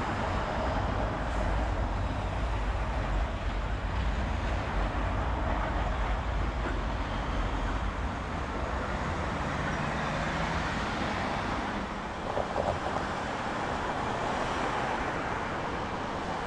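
Traffic on a rain-wet city street: a vehicle's low engine rumble for about the first half, under a steady hiss of rain and wet tyres.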